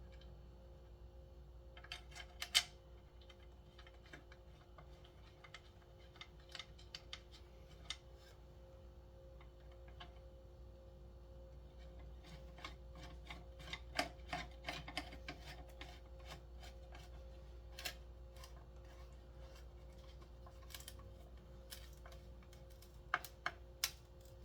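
Small metal clicks and taps, clustered in short bursts, as the captured bolts and a hand tool work against the McCulloch 1-53 chainsaw's recoil starter housing while the bolts go back in.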